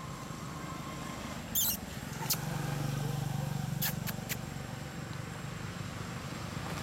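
Low, steady engine hum of a motor vehicle, growing louder about two seconds in and easing off again, with a handful of sharp crackling clicks near the middle.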